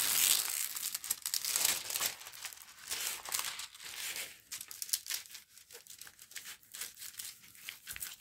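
Clear plastic protective film on a diamond painting canvas crinkling and rustling as it is handled and smoothed flat by hand, loudest in the first two seconds, then lighter scattered crackles.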